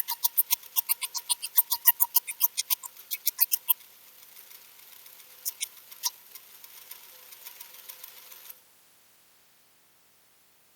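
Hole saw in a half-inch drill cutting through a cast-iron mill base: rapid, sharp metallic ticking at about seven a second over a faint steady drill whine. The ticking thins out after about four seconds, and the drill stops suddenly about eight and a half seconds in.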